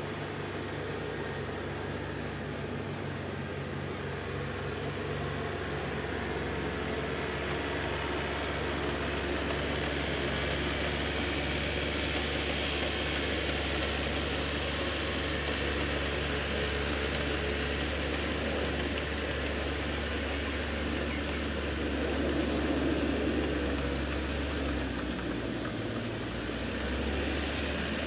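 Tractor engine running steadily as it pulls a rotary tiller through a flooded rice paddy, growing louder as it comes closer. The engine note shifts near the end as the tractor turns.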